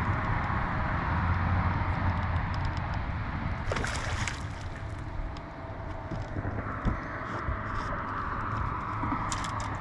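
Boat on the water: a steady motor hum mixed with wind and water noise, with a short burst of hiss about four seconds in and a few light clicks near the end.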